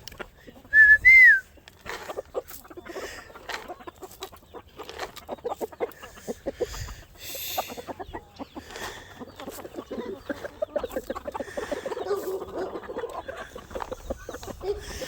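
A short, loud two-note whistle about a second in, then a flock of chickens clucking and chattering that grows busier in the second half.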